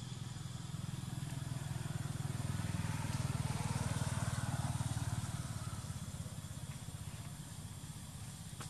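A motor engine passing by, growing louder to a peak about four seconds in and then fading away.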